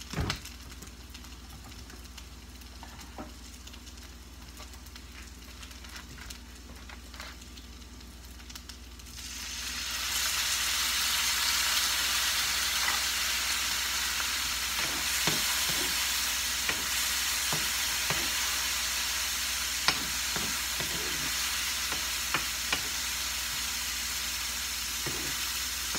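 Chicken strips frying in soy sauce in a frying pan. A low sizzle swells to a loud, steady sizzle about nine seconds in, with a few sharp clicks of a spatula against the pan as it is stirred in the second half.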